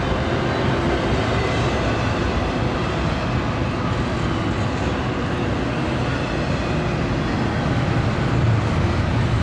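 A diesel freight train passing: a Canadian Pacific and a BNSF locomotive running with the steady rumble of the train rolling by.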